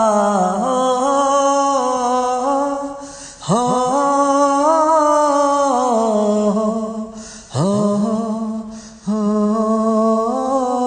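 Wordless singing by a man: long held notes that slide and waver, in phrases broken by short breaks about three and a half, seven and a half and nine seconds in, each new phrase starting with an upward slide.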